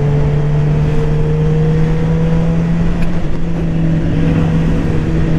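2022 Suzuki GSX-R750's inline-four engine running at a steady, even pitch under way, creeping slightly higher over the first few seconds, over a rush of wind noise.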